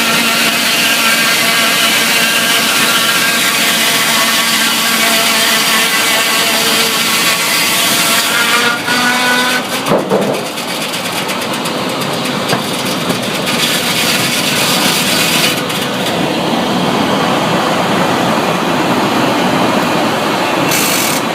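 Sawmill machinery running loudly: a steady engine drone with many overtones that rises slightly about eight seconds in, then changes about ten seconds in to a rougher, noisier running.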